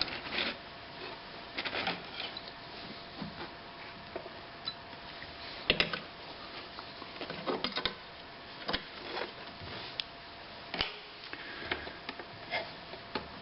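Scattered, irregular clicks, taps and light knocks of hands working on a White 77MG sewing machine and its fabric; the machine itself is not running.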